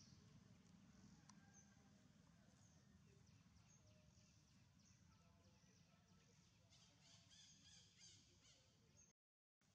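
Near silence: faint outdoor ambience with scattered faint, short, high chirps, a few more of them about seven to eight seconds in.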